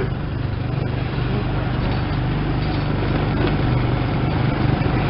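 ATV engine running steadily while riding over sand, with a constant rushing noise over its low hum.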